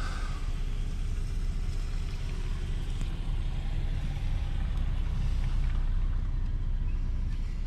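Steady low rumble inside a car's cabin with the engine running.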